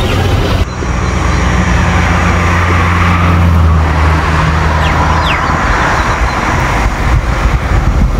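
A motor vehicle engine running with a steady low hum that fades out a bit past halfway, over a noisy background, with a few faint short bird chirps.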